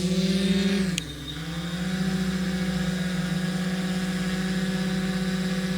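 Splash drone quadcopter's motors and propellers spinning up into a steady hum, with a short dip in pitch and a click about a second in before it settles.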